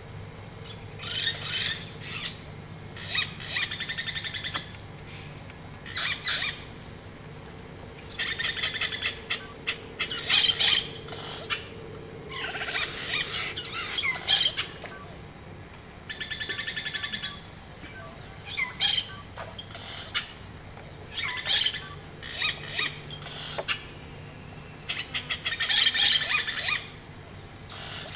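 Rainforest wildlife chorus: a steady high insect buzz with bird calls, many of them rapid trills, coming every second or two.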